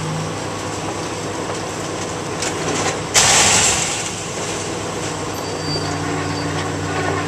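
Scrapyard crane's engine running steadily under load, working hard, with a sudden loud burst of rushing noise about three seconds in that dies away within a second.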